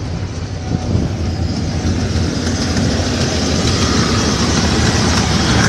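1995 Ford F-250's engine running steadily and growing gradually louder, staying lit now that a faulty sensor (the truck's equivalent of a MAP sensor) has been unplugged.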